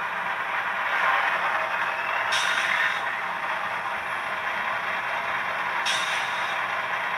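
A LokSound V4.0 sound decoder in an HO-scale GE ET44AC diesel locomotive model, playing its prime-mover start-up running down to idle through the model's small onboard speaker. The engine sound is steady and thin, with two short hisses during it.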